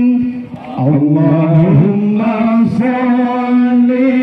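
A man's voice chanting a slow melodic line in long held, wavering notes, amplified over a microphone, with a short break for breath near the start.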